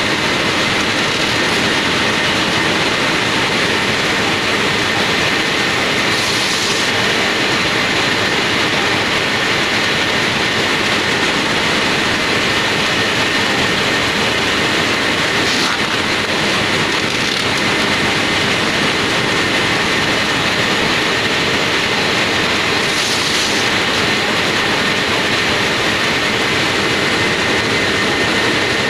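Plastic film processing machine running steadily in a factory: a loud, continuous mechanical clatter with a steady high whine. A brief hiss comes three times.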